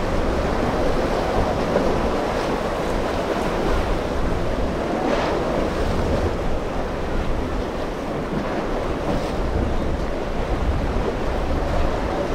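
Ocean surf breaking, with gusty wind rushing across the microphone. A few louder wave splashes stand out.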